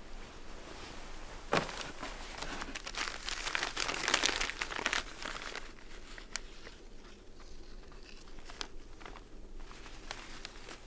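White wrapping paper being crumpled and crinkled by hand as a gift is unwrapped. It starts sharply about a second and a half in and is densest and loudest from about two to five seconds. It then thins to scattered rustles and small crackles.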